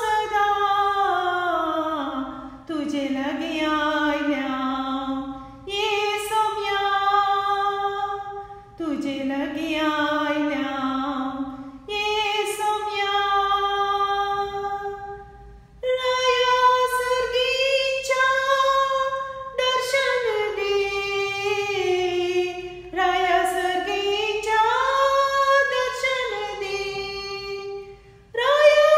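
A woman singing unaccompanied in long held notes, phrase after phrase about three seconds each with short breaks between, her pitch sliding up and down between notes.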